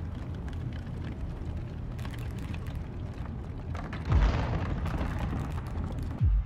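Steady low rumble with faint crackling, broken by two heavy deep booms about two seconds apart, the first about four seconds in and the second near the end.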